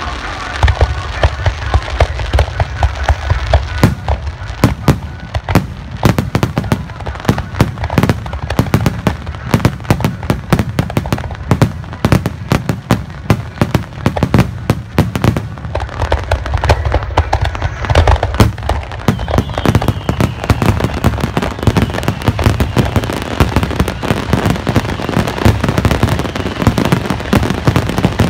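A dense barrage of fireworks going off many times a second, with heavy low booms and sharp bangs running together into continuous crackling.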